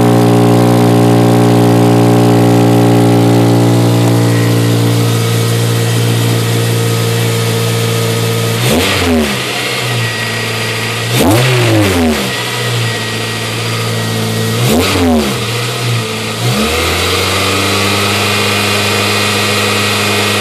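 An 8th-generation Honda Civic Si's four-cylinder engine idling, then revved briefly three times, each rev rising and falling quickly before it settles back to idle. The engine is being listened to for a suspected exhaust leak.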